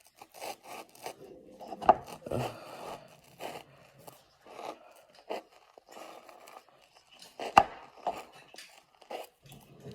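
A foam-filled squishy ball being cut open: irregular scraping and snipping, with two sharp knocks, one about two seconds in and one past seven seconds.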